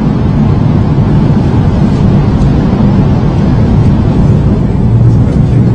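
Interior running noise of a high-speed train accelerating through about 150 to 175 km/h: a loud, steady low rumble with a faint hum under it.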